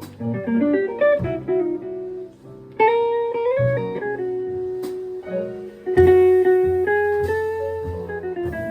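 Jazz quartet of guitar, piano, bass and drums playing, the guitar carrying a single-note melody with some sliding notes over a moving bass line; cymbals come in about six seconds in.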